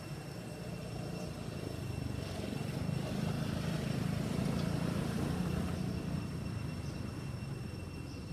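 Low rumble of road traffic, a motor vehicle passing, swelling about three seconds in and easing off after about six seconds.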